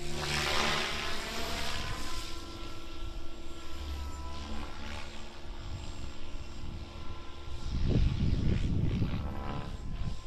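Goblin 630 electric RC helicopter flying aerobatics: the whine of the motor and rotor drifts up and down in pitch as it manoeuvres, with a loud whoosh of the blades in the first two seconds. A burst of low rumble comes about eight seconds in.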